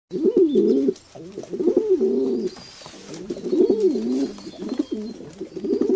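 Pigeons cooing: low, warbling coos that rise and fall in pitch, coming in several phrases with short breaks between them.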